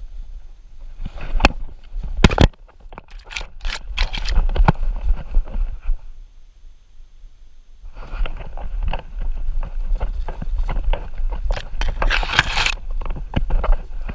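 A dog's paws crunching and scraping through dry leaf litter and twigs, with sharp knocks from the camera mounted on it and a low rumble of the camera jostling. The rustling drops away for about two seconds midway, and a loud brushing rustle comes near the end.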